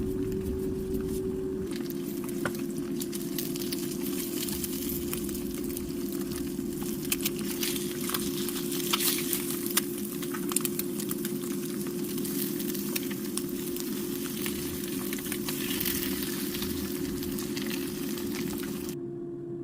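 Food frying and sizzling in a pan: a steady hiss with scattered crackles and pops, over a constant low hum. It stops suddenly near the end.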